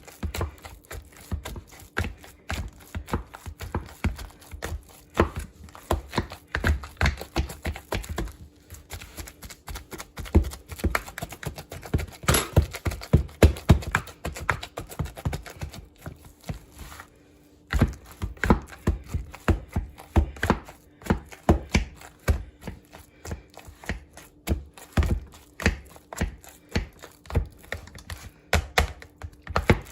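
Rapid, irregular knocks and thumps of a kitchen utensil against a pot while working a batch of mashed potatoes, with a brief pause a little past halfway.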